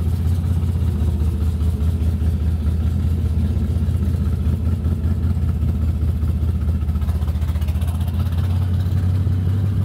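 Car engine running at low speed, a steady deep drone with a fast, even pulsing beat, heard from inside the moving car.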